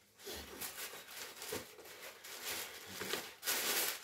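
Gift wrapping being handled and unwrapped, rustling and crinkling irregularly, with a louder burst of rustling near the end.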